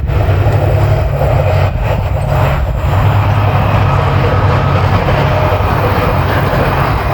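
Limited express diesel railcar train passing close by at speed, a loud steady rumble of wheels on rail and running engines.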